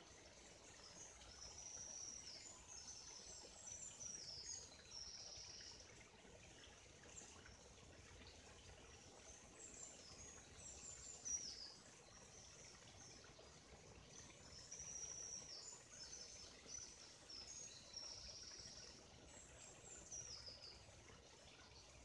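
Faint songbird singing in spells of high, quick notes and short falling trills, with pauses of a second or two between, over the soft, steady hiss of a flowing stream.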